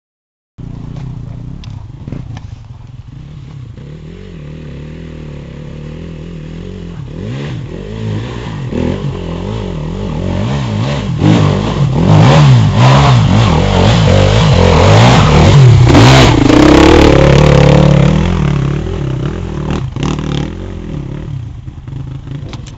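Enduro dirt-bike engines revving hard as the bikes climb a rocky lane, growing louder as they come close and easing off near the end, with knocks and clatter from the stony ground.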